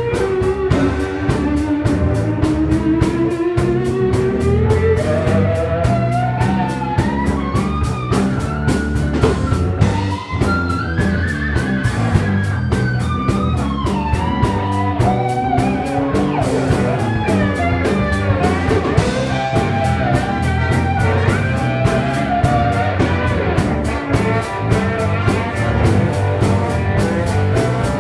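Live blues-rock band playing: electric guitars, bass guitar and drum kit over a steady beat, with a lead melody line that slides up and down in pitch.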